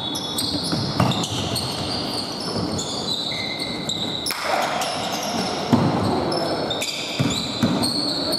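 Basketball game on a hardwood court: the ball bouncing with sharp thuds, and sneakers squeaking in short high chirps as players run, all echoing in a large gym hall.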